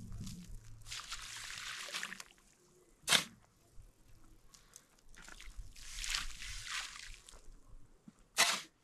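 A long-handled shovel scooping sand from a pile with a gritty scrape, each load followed by a sharp hit as it is tipped into a metal wheelbarrow: two shovelfuls.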